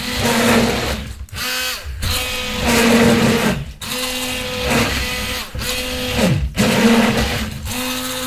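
Electric hand blender running in short bursts of about one to two seconds, its motor whine dropping and rising again at each stop and restart, churning water in a plastic jug.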